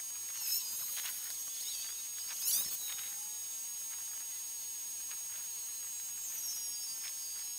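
Outdoor evening ambience with a steady high-pitched hiss. Two quick high animal chirps come about half a second and two and a half seconds in, and a faint falling high whistle near the end.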